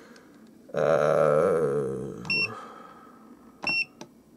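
MUSTOOL MT8208 graphical multimeter giving two short, high key beeps about a second and a half apart as its buttons are pressed to switch from resistance to diode/continuity mode. Before the beeps, a louder wavering tone starts about a second in and fades away over about two seconds.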